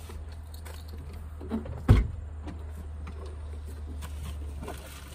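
Van door lock clunking open: one sharp, heavy clunk about two seconds in, over a steady low hum.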